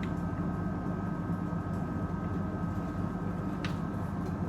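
Steady low background hum with two faint, steady high tones over it, and a light click near the end.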